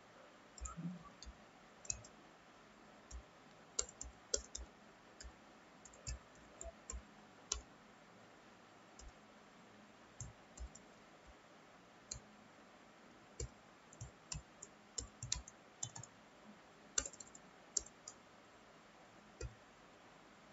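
Computer keyboard keystrokes as code is typed: irregular clicks, single or in short runs, separated by pauses of a second or two.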